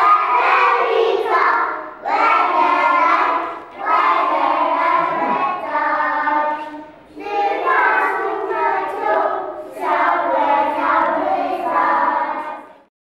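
A group of children singing together in phrases of about two seconds, with short breaks between them. The singing stops just before the end.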